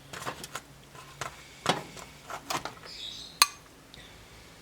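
Dishes and cutlery clinking and knocking several times while food is served, with one sharp, loud clink a little over three seconds in.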